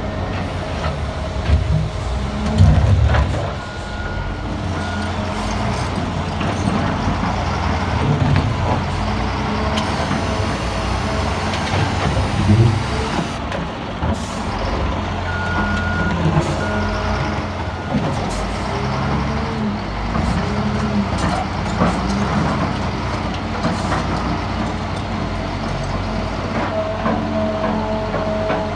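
Heavy diesel earth-moving machinery and a truck running steadily, with short reversing beeps a couple of times and a few heavy knocks, the loudest about three seconds in.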